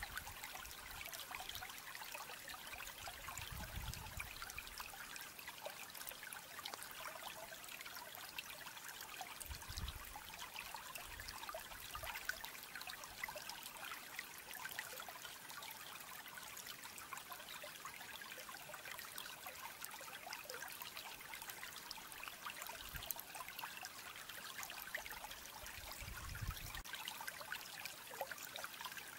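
Steady, faint background hiss with a trickling, crackly texture and many tiny ticks. A few dull low thumps come about four seconds in, around ten seconds, and shortly before the end.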